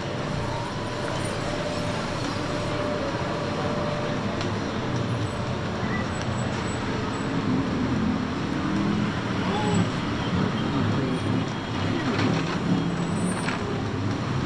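Busy city street traffic: motor vehicles, buses among them, running past on a main road, a steady unbroken wash of engine and road noise.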